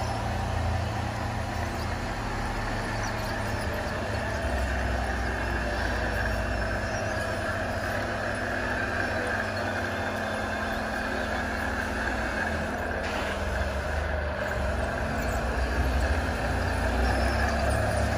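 Radio-controlled model trucks running, giving a steady truck-engine rumble whose deep tone shifts a little now and then, over a hiss of background noise.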